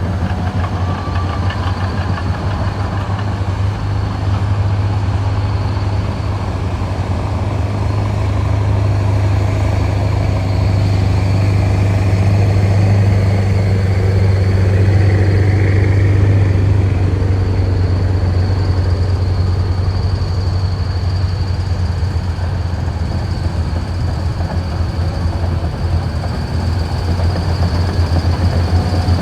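Komatsu D275AX bulldozer's large diesel engine working under load with a steady low drone, alongside the running of its tracks. The sound swells a little louder around the middle as the dozer pushes.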